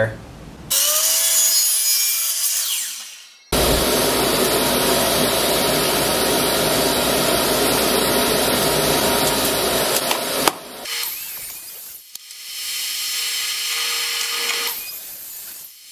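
A miter saw cutting: a loud, steady sawing noise starts suddenly a few seconds in and stops abruptly about seven seconds later. The saw then runs more quietly with a steady whine near the end.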